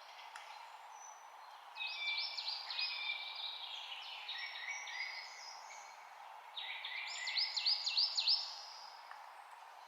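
Songbirds singing over a steady background hiss. There are two phrases of quick, repeated chirping notes, one about two seconds in and a louder one near the end.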